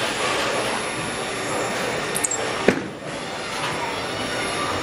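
Bowling alley noise: a steady rumble of bowling balls rolling down the lanes, with one sharp clack of pins about two and a half seconds in.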